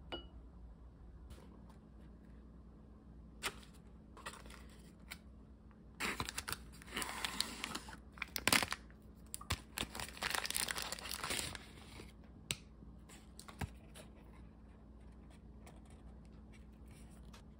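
Thin plastic film and a plastic tray of dango being peeled open and handled, with a run of crinkling and tearing rustles lasting several seconds in the middle. A few light clicks and taps come before and after.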